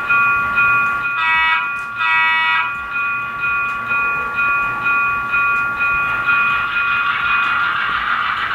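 HO-scale GP38 model locomotive's sound decoder, heard through its small onboard speaker. A locomotive bell rings steadily, cut by two short horn blasts about a second and two seconds in. Near the end the bell stops and the diesel engine sound rises as the throttle is opened.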